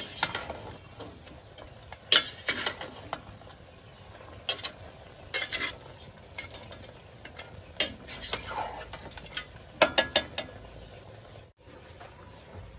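Metal ladle stirring chicken pieces in a stainless steel pot, sharp clanks and scrapes against the pot in several small clusters, over a steady sizzle as the chicken sears.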